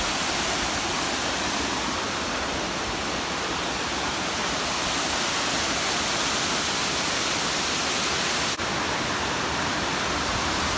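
Steady rushing of a large cascading waterfall, Ramsey Cascades, heard up close, broken once by a momentary dip in level about eight and a half seconds in.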